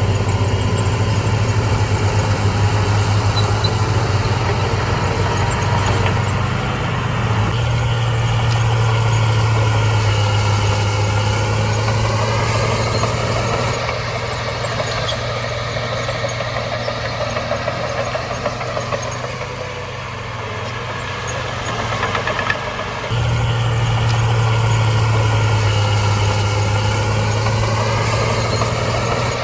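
Heavy diesel engine of an earthmoving machine running steadily, its note and loudness shifting several times as the load changes, with a higher whine that rises and falls twice.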